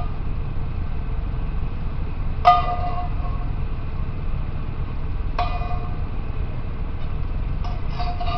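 A metal utensil knocking against metal cookware a few times, each knock ringing briefly, over a steady low rumble.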